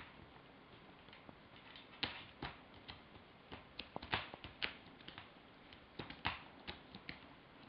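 Soft, irregular wet clicks and smacks from a tabby mother cat licking her kitten while it suckles beneath her, most of them bunched in the middle few seconds.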